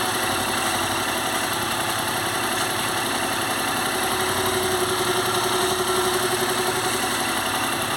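Yamaha MT-07's 689 cc parallel-twin engine idling steadily, with a loud, low exhaust note.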